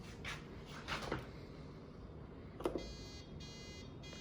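A few faint handling clicks and knocks, then, about three seconds in, a short run of three electronic beeps from a Ninja Dual Brew Pro coffee maker being set up.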